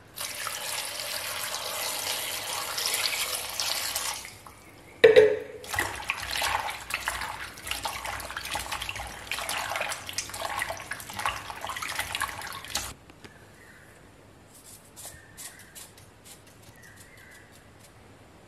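Water poured in a steady stream into a steel pot of dried tapioca pieces. About five seconds in comes one sharp ringing clank, then hands swish and rub the pieces in the water, splashing unevenly. The splashing stops about thirteen seconds in, leaving only a few faint ticks.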